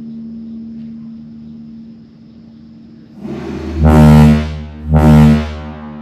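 Kockums MKT 230/75 air-powered ship horn, with a 230 mm diaphragm pitched at 75 Hz, blowing. About three seconds in it sputters up, then gives two very loud, deep blasts close together, each under a second long.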